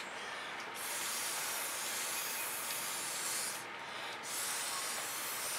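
Breath blown hard through a straw onto wet poured acrylic paint: a steady hissing rush in two long blows, with a short pause for breath about four seconds in.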